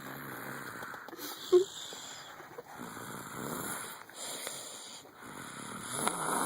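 A sleeping child snoring: a steady run of noisy, rasping breaths, one about every second and a half. A brief sharp sound comes about a second and a half in.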